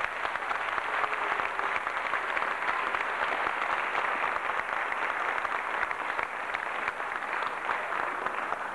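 Applause: many people clapping together in a dense, steady patter.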